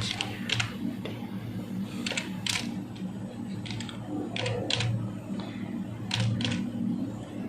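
Computer keyboard keys pressed one at a time, in single clicks and pairs spaced irregularly, over a steady low hum.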